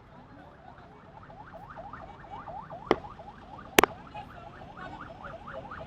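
Siren on a fast yelp: short rising sweeps, about four or five a second, faint at first and growing louder. There are two sharp clicks near the middle.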